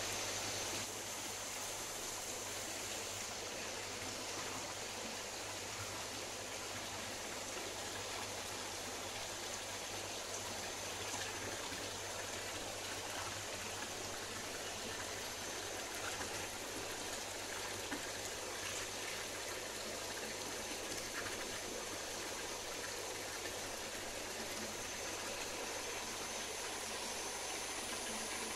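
Steady bubbling and splashing of koi pond water where airstones on airline tubes break the surface, with a steady low hum underneath.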